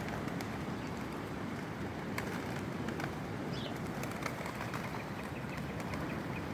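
Pigeons gathered at scattered seed, with wing flaps and scattered light clicks over a steady rushing background of wind or surf.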